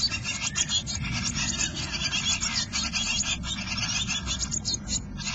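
Eurasian blue tit nestlings begging in the nest box: a dense, continuous chorus of rapid high-pitched calls as an adult comes in to feed them.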